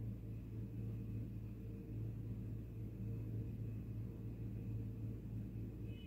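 Fish pieces deep-frying in a pot of hot oil, heard as a steady low rumble and hum with only a faint sizzle on top.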